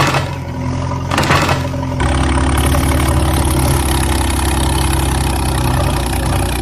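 Large vehicle engine idling with a steady low rumble, a brief rough burst about a second in, and a small change in its note about two seconds in.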